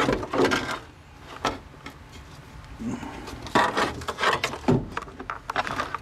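A pedal assembly being handled and pressed against the car's sheet-metal floor and firewall while its fit is tried: irregular knocks and scrapes, heaviest just after the start and again from about three and a half to five seconds in.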